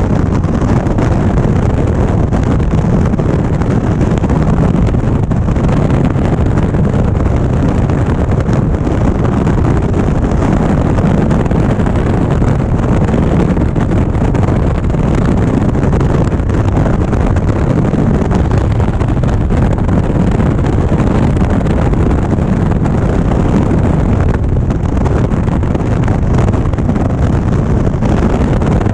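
Steady wind noise on the microphone over the running V-twin engine of an Indian Springfield motorcycle at road speed, loud and even without change.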